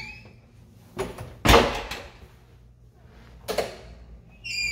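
Apartment entry door being opened: a latch click about a second in, then a heavy thud, and another sharp knock about three and a half seconds in.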